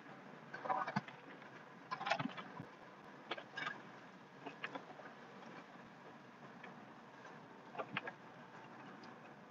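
Pickup truck pushing snow with a front-mounted plow, heard inside the cab: low steady running noise with scattered knocks and rattles, the clearest about a second in, at two seconds, around three and a half seconds and near the end.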